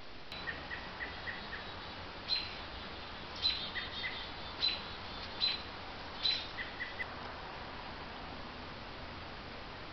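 Short, high bird chirps at two pitches, in loose clusters through the first seven seconds or so, over a steady background hiss.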